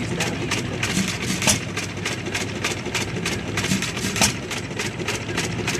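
Home Power Co. one-horsepower air-cooled hit-and-miss gas engine running: a steady clatter of about five clicks a second, with a louder firing stroke about every two and a half to three seconds, about a second and a half in and again past four seconds.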